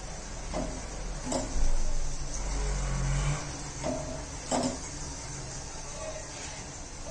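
Gas stove burner running under a wire roasting rack while a roti is turned over the open flame. A low rumble swells for a couple of seconds about 1.5 s in, and a few light taps and clicks come as the roti and rack are handled.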